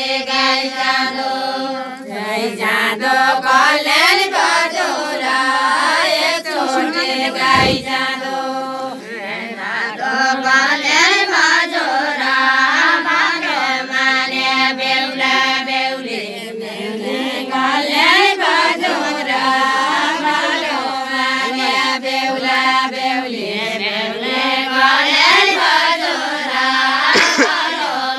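Group of women singing a Deuda folk song together in unison, in long drawn-out chant-like phrases over a steady held note.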